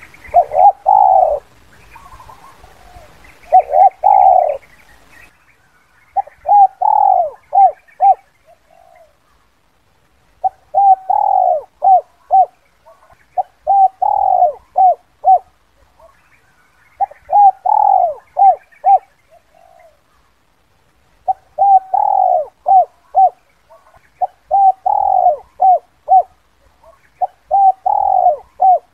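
Spotted dove cooing the 'kuk 2' call used to lure wild doves. It is a phrase of one or two slurred coos followed by a few short clipped notes, repeated about every three to four seconds.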